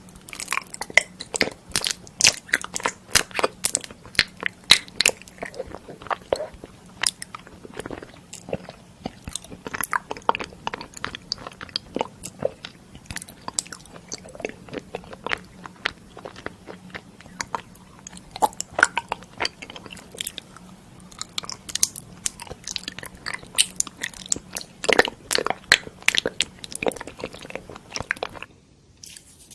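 Close-miked eating: a person biting and chewing crunchy food, a dense, irregular run of loud crunches and crackles that stops near the end.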